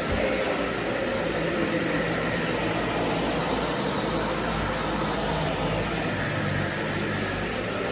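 Vacuum cleaner running steadily: a constant motor hum and rush of air at an even level.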